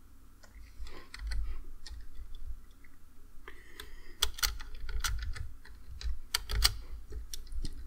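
Typing on a computer keyboard: an irregular run of key presses, with a few louder strikes in the second half.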